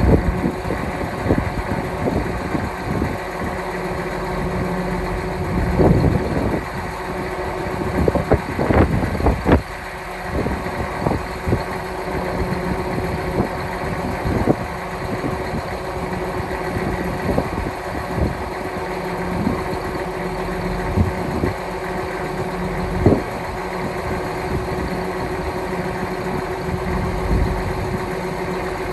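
An engine idling steadily while a field cultivator's wings fold up hydraulically. Several sharp metal clanks and knocks come from the cultivator's steel frame, a cluster of them near the quarter mark and single ones later.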